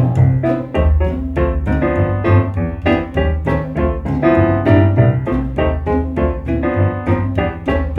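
Background music: piano played in a steady run of quick notes over a bass line.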